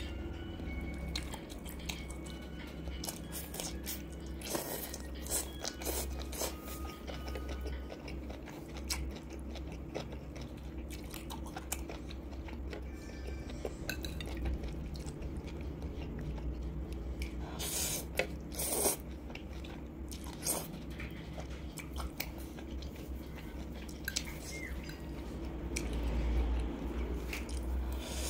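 Close-miked eating sounds: chewing and biting mouthfuls of spicy instant noodles, with sharp clicks of a metal fork against the ceramic bowl. Near the end noodles are slurped into the mouth.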